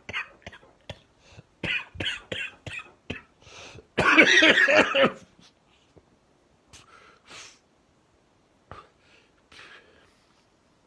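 A man sick with Covid-19 coughs in a rapid run of short, weak coughs, then makes one longer, louder coughing effort about four seconds in. A few faint breaths follow. He is at the peak of the infection and can barely cough or breathe.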